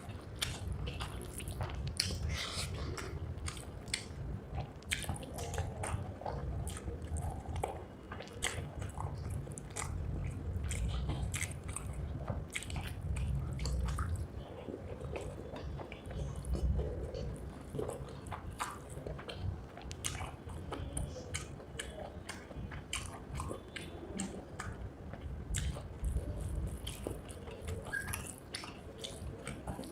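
A person chewing and eating rice with egg curry close to the microphone: wet mouth smacks, chewing and small clicks of the food, over and over.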